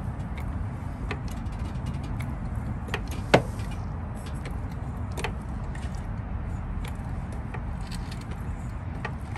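Steel hydraulic floor jack being pumped by its long handle to lift a car, giving scattered metallic clicks and clanks with one louder clank about three and a half seconds in, over a steady low rumble.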